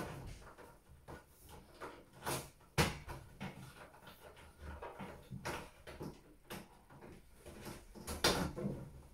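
Handling noises from a washing machine hose and fittings being worked over the machine's top: irregular light knocks, clicks and rustling, with a sharper knock about three seconds in and another near the end.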